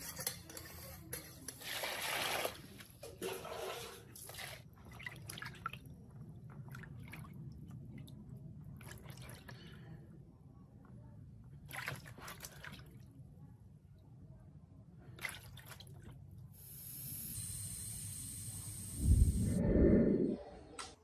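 Water sloshing and splashing as hands push an inflated motorcycle inner tube under water in a plastic basin, the usual way to find a puncture. Near the end, a loud low thump.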